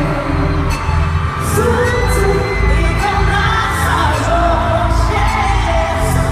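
Live concert music heard from within the audience: a singer's voice over a heavy bass and cymbals.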